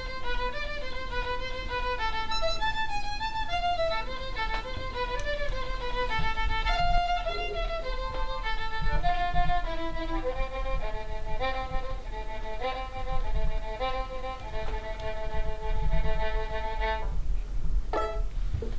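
Violin playing a quick, lively melody of short notes. The playing stops about two seconds before the end, and a single click follows.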